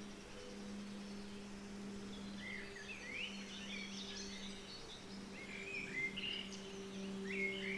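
A steady low tone with a fainter higher overtone holds throughout, laid over a recording of small birds chirping and twittering, which gets busier from about two and a half seconds in.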